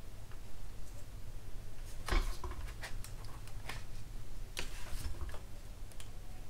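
Handling noises as gloved hands move a plastic scale-model airframe: a scatter of short soft clicks and rustles, the sharpest about two seconds in, over a low steady hum.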